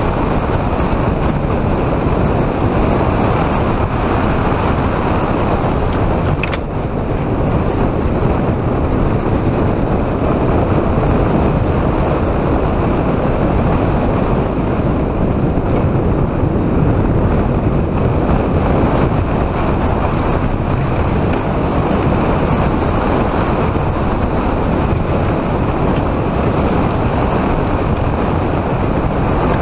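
Loud, steady rush of wind over the microphone of a camera riding a roller coaster, mixed with the rumble of the coaster train running along its track.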